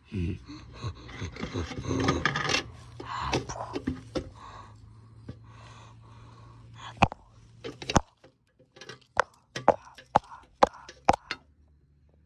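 Handling noise: rustling and scraping for the first few seconds, then about ten sharp clicks and taps at uneven spacing, like hard plastic and a glass-and-metal display case being knocked and handled.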